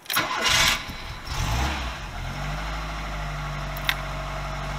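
VW Golf Mk2's four-cylinder engine cranked on the starter and firing up, picking up briefly as it catches, then settling into a steady idle. One short click about four seconds in.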